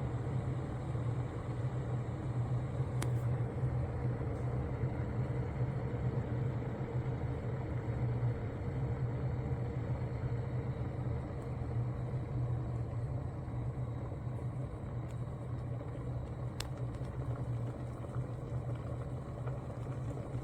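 Proctor Silex 1-liter electric kettle heating water: a steady rumble with a low hum.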